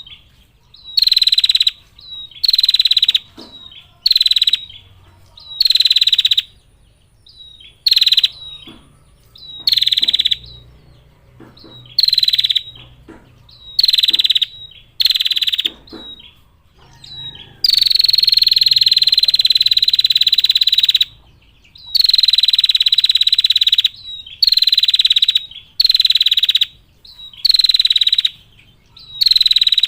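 Female prinia (prenjak) giving its rapid, high trilling 'ngetir' call over and over, short trills about once a second with one long trill of about three seconds about two-thirds of the way through.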